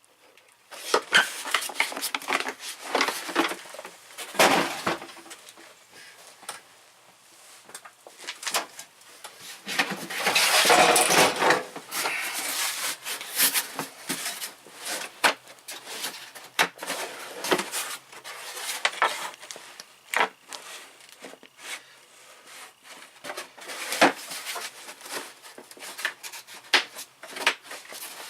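Hand tools and tool kit cases being handled and rummaged through, with repeated clicks, knocks and clatter of metal and plastic. A longer, busier burst of clatter comes about ten seconds in.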